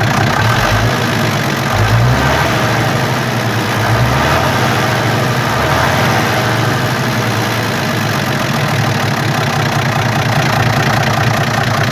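FNM 180 truck's diesel engine idling steadily, warmed up, on one of its first runs after two and a half years standing unused.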